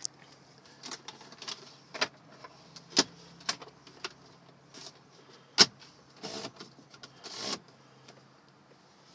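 Irregular clicks and knocks of handling inside a car cabin, about a dozen, the loudest about five and a half seconds in, with two short scraping rubs after it. A faint steady hum runs underneath and stops shortly before the end.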